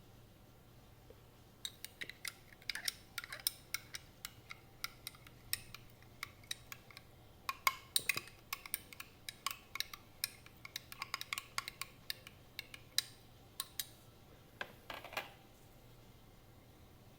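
Kitchen utensils clicking and clinking irregularly in a quick, uneven run of light taps, starting about two seconds in and stopping about two seconds before the end.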